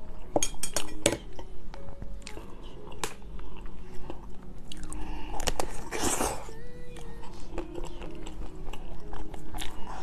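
A person chewing and biting mousse cake, with many small mouth clicks and a louder, noisier bite about six seconds in.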